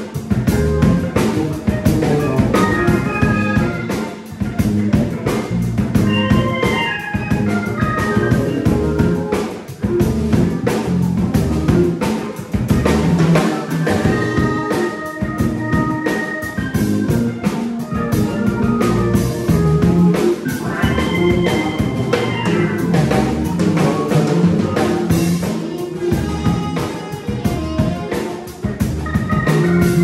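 Live band playing an instrumental tune on keyboard, trombone, saxophone, electric guitar, bass guitar and drum kit, with a steady drum beat under the melodic lines.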